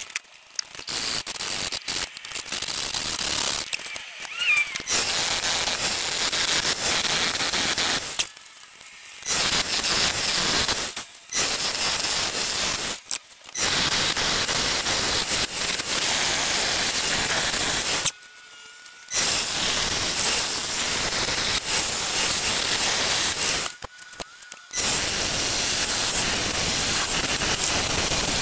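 Turning gouge cutting into a spinning root block on a wood lathe: a steady loud hissing shear of wood. In the first few seconds the cuts come choppy and broken as the tool meets the uneven root. After that the hiss runs in long stretches that stop abruptly for about a second several times, and a faint steady whine is left in the gaps.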